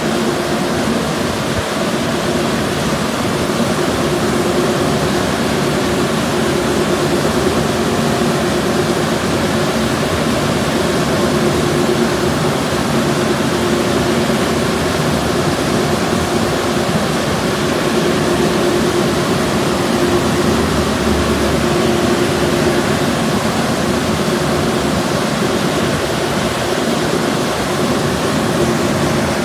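Ryko SoftGloss Maxx 3 automatic car wash bay running, a loud steady rushing noise with a constant hum in it.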